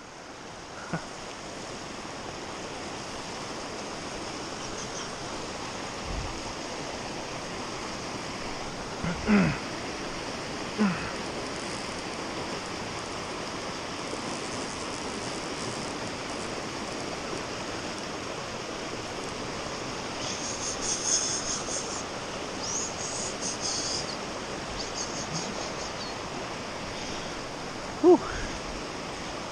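Shallow creek water rushing steadily over rock ledges and riffles, loud enough to drown out a voice. A few short voice sounds break through, about nine, eleven and twenty-eight seconds in.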